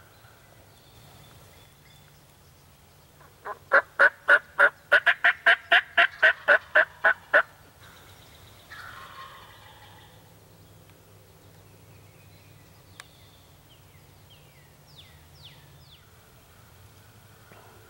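Hunter's turkey call run aggressively: a fast, loud string of about fifteen hen yelps over some four seconds, meant to pull in a gobbler that has hung up below.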